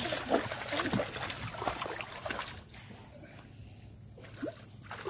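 Splashing and sloshing of people wading and working with their hands in shallow muddy water, busiest in the first two seconds and then tailing off. A short rising call comes near the end.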